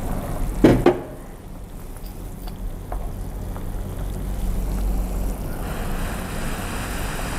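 Broth simmering in a pan over a lit gas burner, a steady low noise, with a couple of short knocks about a second in.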